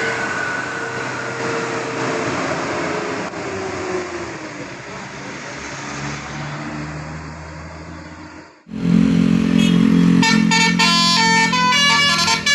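Road traffic noise with a faint engine note dropping in pitch, then, after an abrupt cut, a bus's 'telolet' multi-trumpet musical air horn sounds loudly: first a held low chord, then from about ten seconds in a rapid run of short stepped notes playing a tune.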